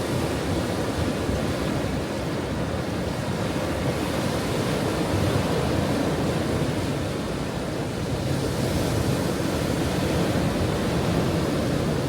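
Ocean waves breaking and washing on a shore, a continuous deep rush that swells and eases slowly, a little brighter from about eight seconds in.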